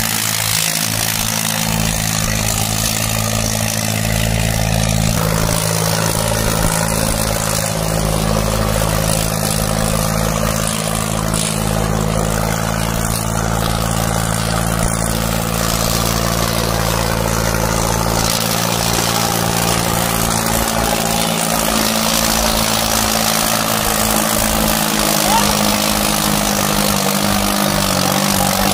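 John Deere 5210 tractor's three-cylinder diesel engine running steadily under heavy load, pulling two disc harrows through the soil.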